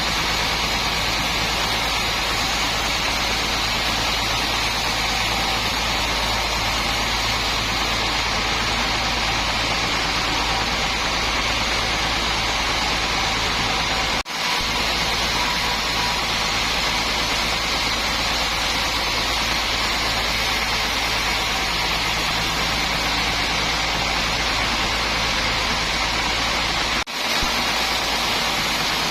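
Sawmill machinery running: a steady, loud, noisy drone with a low hum underneath, broken by two very brief dropouts about halfway and near the end.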